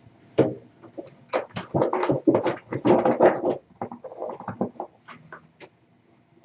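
Rustling, crinkling and light knocking as a person in a plastic protective coverall handles a blanket at a sink. Irregular sharp crackles, busiest and loudest from about a second and a half to three and a half seconds in, then thinning out.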